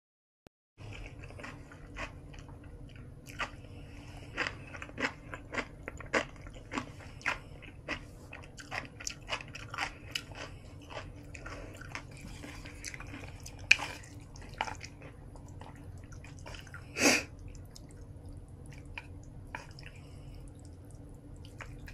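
Close-miked chewing of kimchi noodles and dumplings: irregular wet mouth clicks and crunches, one or two a second, over a steady low hum. About seventeen seconds in comes one louder, longer noise.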